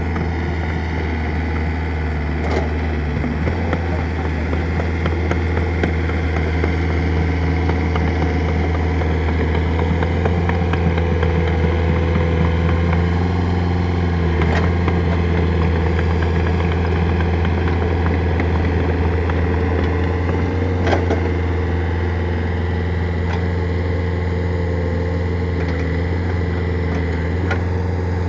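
Excavator engine running steadily, with a few sharp knocks here and there.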